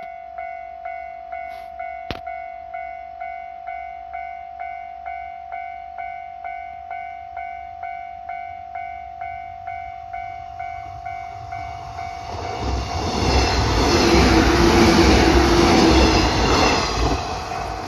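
Japanese level-crossing alarm ringing a pulsed electronic tone about twice a second. From about twelve seconds in, a train rumbles across the crossing, growing loud and then easing off near the end while the alarm keeps ringing. A single sharp click about two seconds in.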